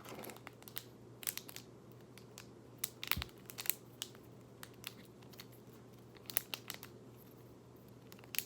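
Faint, irregular plastic clicks and crackles as a Wacky Track fidget toy's snap-together links are handled and twisted.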